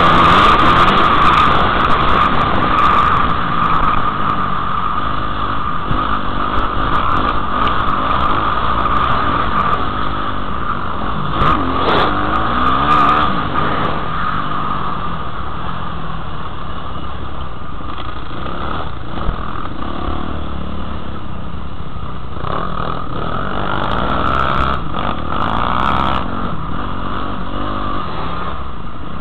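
Motocross dirt bike engine running hard under the rider, heard from a helmet-mounted camera, its revs rising and falling over and over as the throttle is opened and shut through the ruts and jumps, over a constant rumble of wind and riding noise.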